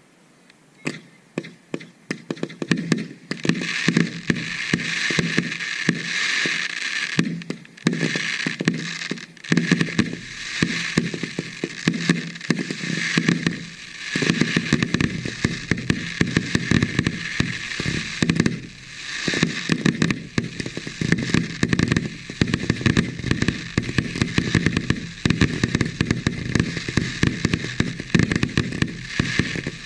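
Fireworks display: a dense barrage of aerial shells bursting, with rapid bangs and crackling that start about a second in and keep up without a break.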